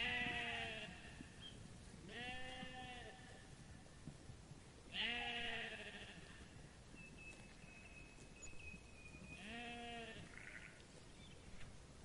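Sheep bleating: four separate bleats, each under a second, spaced two to four seconds apart.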